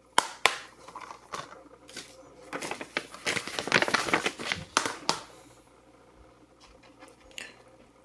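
A Blu-ray case and its paper code insert being handled: a few sharp clicks of the plastic case, then a couple of seconds of paper and plastic rustling that stops about five seconds in.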